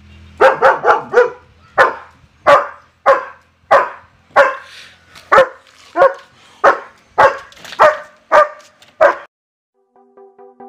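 German shepherd barking about sixteen times: a quick run of four, then single barks about every two-thirds of a second, stopping about nine seconds in. Electronic music with a steady beat starts near the end.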